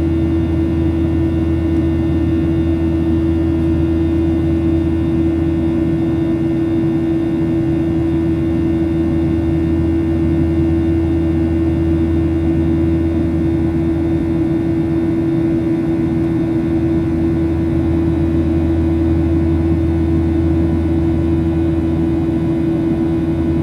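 Steady cabin noise inside a Boeing 737-800 airliner on the ground before takeoff. A constant low hum carries one held mid-pitched tone above it.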